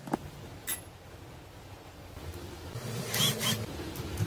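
Light metal clicks as the aluminium bearing plate is handled, then rubbing and scraping from about three seconds in as screws are set into the bearing retainer and turned with a screwdriver.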